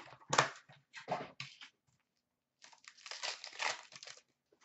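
Hockey card packaging being torn open and crinkled: short ripping and rustling bursts, then a longer stretch of crinkling about three seconds in.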